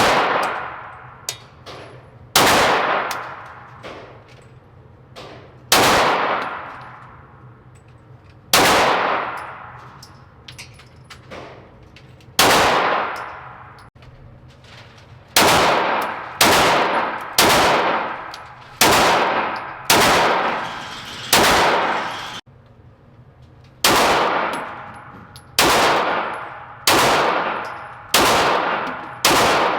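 Gunshots fired one at a time, about sixteen loud reports, each followed by a long echo. The shots come every few seconds at first, then speed up to about one a second, with a few fainter shots in between.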